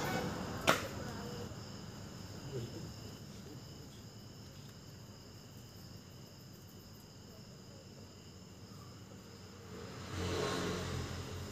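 Crickets chirring steadily in the night background, with a single sharp click about a second in and a louder muffled noise near the end.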